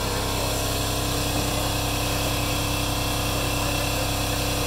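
Handheld power tool running steadily while cutting a metal panel.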